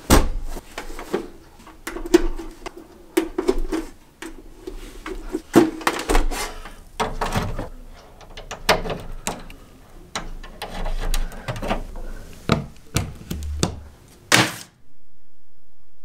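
A VCR being handled and set up: a run of knocks, thunks and scrapes as the deck is put down and moved into place, with clicks and rattles of RCA cables being pushed into their jacks. The handling stops abruptly about 14.5 seconds in.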